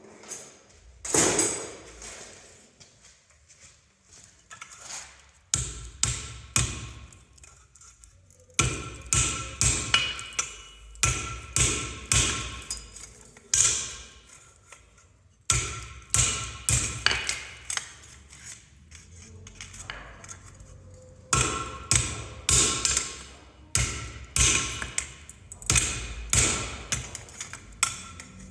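Blacksmith's hammer striking hot steel at the anvil in runs of about two blows a second, each blow with a short metallic ring, with a few brief pauses between runs while forging leaf blanks.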